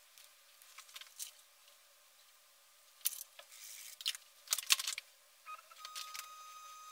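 Sharp plastic clicks and knocks from the printer's clear sand refill containers and their lids being handled, the loudest near the middle. About five and a half seconds in, the powder-deposition 3D printer starts up with a steady whine.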